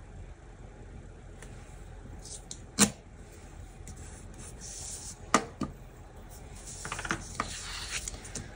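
Pen-style washi tape cutter scratching along a strip of washi tape on a paper planner page, with two sharp taps, and paper sliding and rustling near the end.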